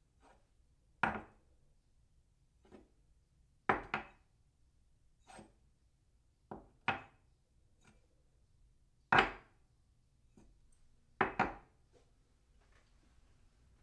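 Ceramic cup set down on its saucer again and again: a series of sharp, short clinks one to two seconds apart, several in quick doubles. Faint scraping near the end.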